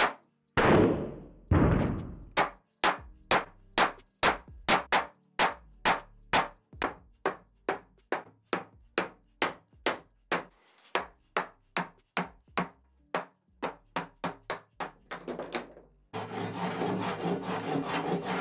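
Mallet striking a wood chisel about twice a second, chopping a wooden foot block off the underside of a solid-wood table, with a couple of longer, rougher sounds near the start. About two seconds before the end, a hand saw starts cutting through the wood in steady strokes.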